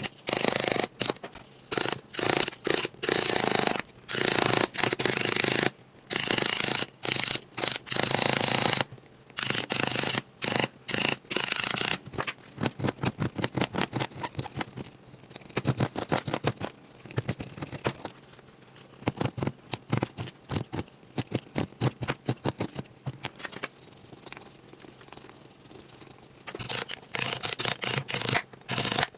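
Small hand tool scraping and scratching at the plaster block of a gemstone excavation kit, in repeated strokes. The strokes are longer for the first several seconds and again near the end, and come quick and short in between.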